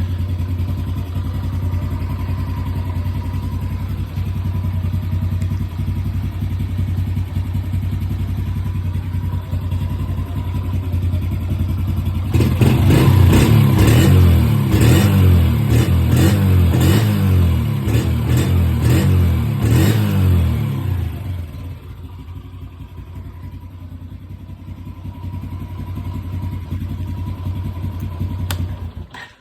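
A 2019 Honda TRX90X ATV's small single-cylinder four-stroke engine running steadily, then revved up and down for several seconds about twelve seconds in. After about 21 s it drops back lower and quieter, then rises again near the end. It runs smoothly after its rat-chewed wiring was spliced and taped.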